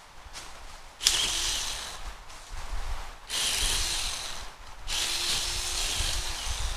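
Small battery-powered 6-inch chainsaw cutting wood in three bursts, each lasting roughly a second or two.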